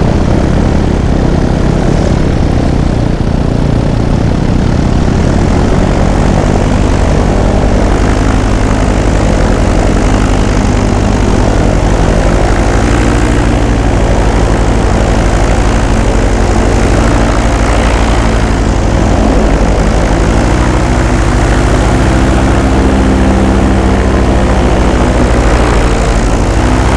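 Paramotor's two-stroke engine and propeller running steadily in flight; its note steps up a little about twenty seconds in.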